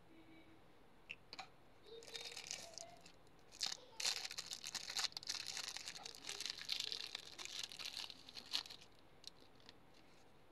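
Clear plastic wrapping crinkling as it is pulled off a small cardboard box. A few light ticks come first, then the crinkling starts about two seconds in and runs on densely from about four to nine seconds.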